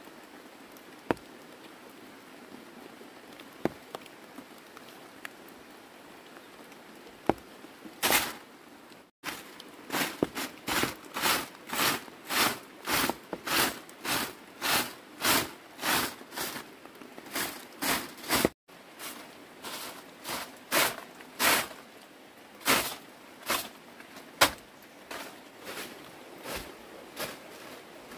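Soft grass broom sweeping a stone-paved floor: a regular run of swishing strokes, about two a second, starting about eight seconds in. Before that, a few sharp clicks over a steady faint hiss.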